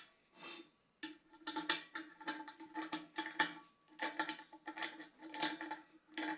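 Background music: a steady held tone with light percussion over it.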